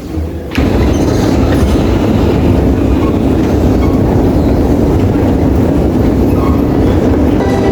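Moscow Metro train running, a steady loud rumble of wheels and carriage that comes in abruptly about half a second in.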